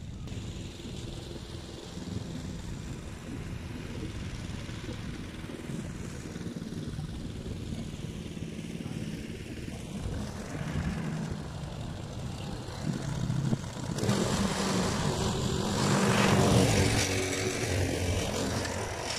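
Briggs & Stratton four-stroke engine of a walk-behind lawn mower running steadily while cutting grass, growing louder about three-quarters of the way through.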